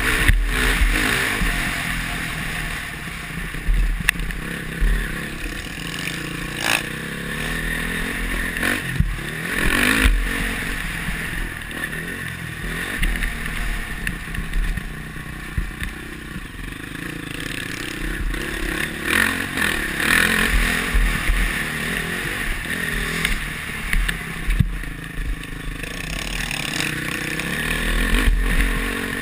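Honda CRF450R four-stroke single-cylinder dirt bike engine under riding load, revving up and easing off again and again as the throttle opens and closes, heard from a helmet camera with wind rumbling on the microphone and a few sharp knocks.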